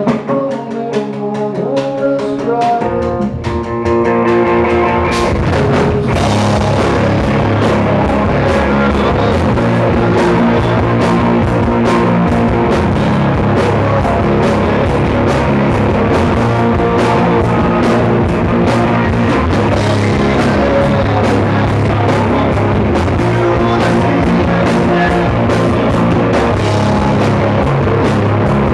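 Rock band playing an instrumental passage with guitar and drum kit: a lighter guitar part for the first few seconds, then the drums and full band come in about four seconds in and play on steadily.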